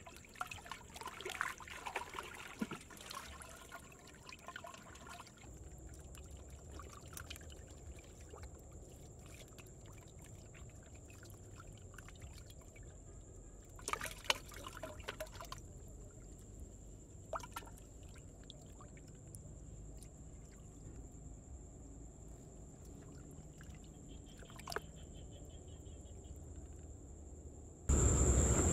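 Catfish stirring in a shallow muddy pool, a faint trickling and sloshing of water that is busiest in the first few seconds, with a few brief splashes around the middle. Near the end a louder steady rush of wind noise sets in abruptly.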